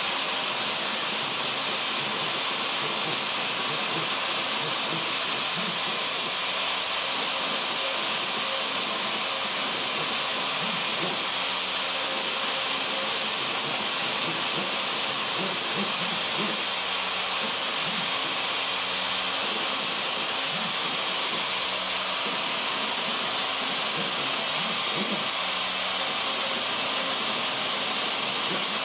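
Craftsman 2 hp router on a CNC Mogul machine, running steadily with a high hissing whine as a 1/16-inch tapered ball-nose bit carves letters into cedar. Lower tones come and go every few seconds as the machine moves the cut.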